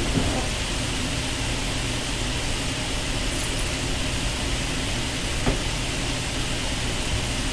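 Steady room noise: a low hum with an even hiss over it, and a single faint click about five and a half seconds in.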